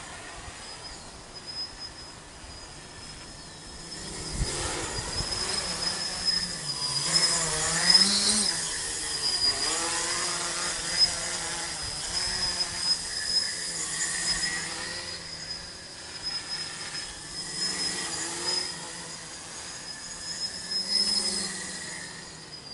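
A tricopter's three brushless outrunner motors (2216-11, 900 kV) spinning 8x4.5 carbon-fibre props in flight, the whir rising and falling in pitch as the throttle changes, with a steady high whine over it. It grows louder about four seconds in, is loudest around eight seconds, and eases off near the end.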